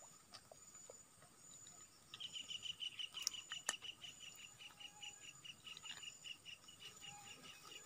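Insects chirping: a fast, even run of high chirps starts about two seconds in and goes on for about five seconds over a faint, steady high buzz. Two sharp clicks come close together in the middle.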